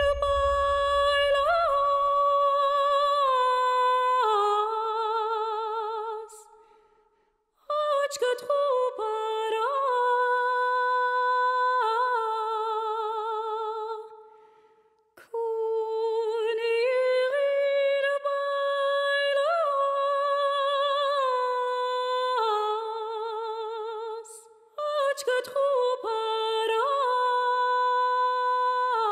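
A woman humming a slow, wordless melody on long held notes that waver with vibrato, in phrases separated by short pauses. A few faint clicks fall between the phrases, about eight and twenty-five seconds in.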